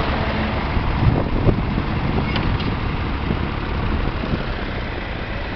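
Fordson Dexta tractor's diesel engine running steadily, heard close up beside the tractor.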